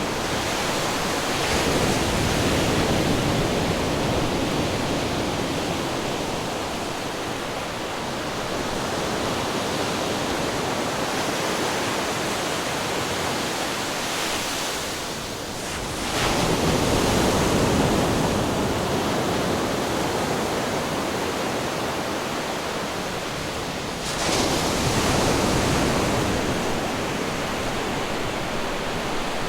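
Ocean waves crashing against rocks, a continuous rush of surf with three heavier breaks, about two seconds in, midway through and near the end, each swelling suddenly and then fading.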